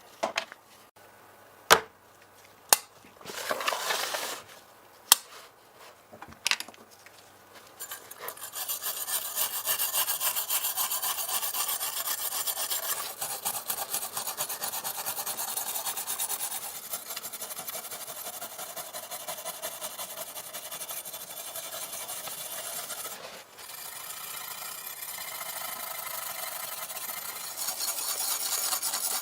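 Hand abrading of a die-cast model car's metal body, a steady fast scrubbing, as if sanding or filing off old paint, that sets in about eight seconds in and runs with a brief break near the end. Before it come a few sharp clicks and taps and one short rasp.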